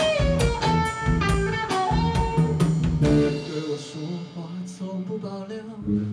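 Live rock band playing amplified: electric guitar and bass over a drum kit. The drums drop out about halfway through, leaving the guitar and bass ringing on.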